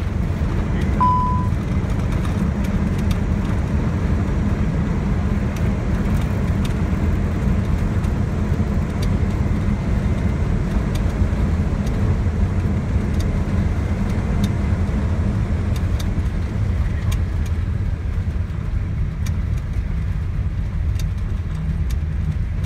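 Steady low rumble inside an Airbus A320 cockpit as the airliner rolls out on the runway just after touchdown. A short beep sounds about a second in.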